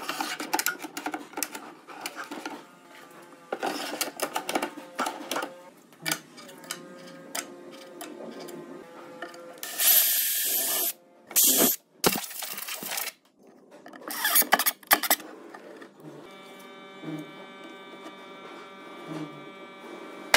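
Knocks and scrapes of drawer boxes being fitted onto metal drawer runners. A cordless drill runs in two short bursts, drilling into a drawer, from about ten seconds in. A steady hum of several held tones fills the last few seconds.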